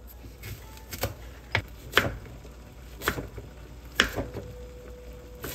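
Chef's knife slicing a green onion on a plastic cutting board: about seven sharp knocks of the blade against the board, unevenly spaced about a second apart.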